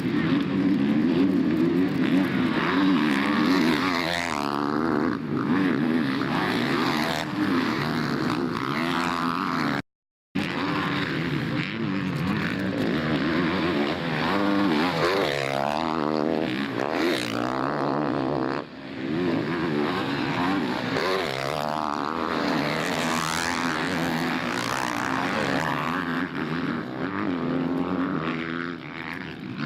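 Motocross bikes racing, their engines revving up and down in pitch as they go around the track, several engines overlapping. The sound drops out completely for a moment about ten seconds in.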